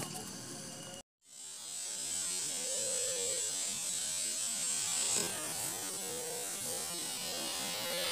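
Homemade sugar rocket motor, potassium nitrate and sugar propellant, hissing steadily as it ignites while the rocket is still on the pad. The sound cuts to silence briefly about a second in, then the hiss comes in and grows a little louder near the end.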